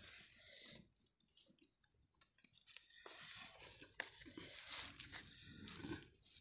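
Faint crackling and rustling of hands pressing and shaping soft dough, with a near-silent stretch about a second in.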